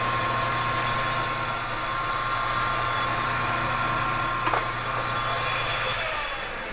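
South Bend metal lathe running, its motor and drive giving a steady hum with a thin whine, while a center drill in the tailstock chuck drills a center hole in the end of the spinning steel bar. Near the end the hum dies away as the lathe is shut off and spins down.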